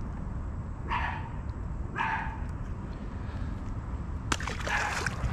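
A dog barks twice, about a second apart. Near the end comes a short splash as a small bass drops off the line into the canal.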